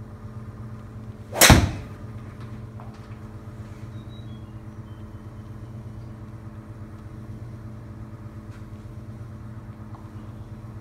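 A single loud crack about one and a half seconds in: a Callaway XR 3-wood striking a teed golf ball on a full swing, the ball driven into the simulator's impact screen. A steady low hum runs beneath.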